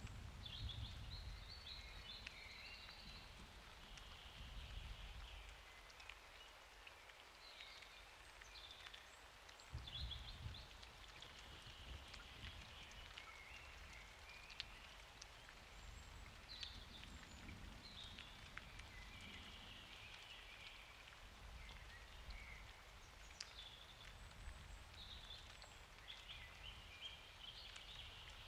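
Faint steady rain with scattered drips. A low distant rumble of thunder sounds in the first few seconds and again about ten seconds in.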